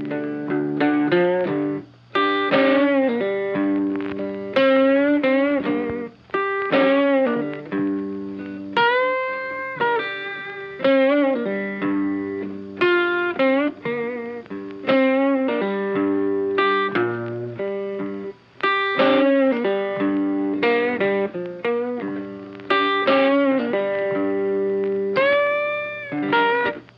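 Guitar-led background music with plucked notes in a steady rhythm and several bent notes that slide up in pitch.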